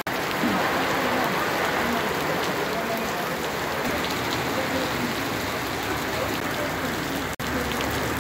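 Heavy rain pouring steadily onto a wet street, a continuous hiss, with faint voices in the background. The sound cuts out for an instant about seven seconds in.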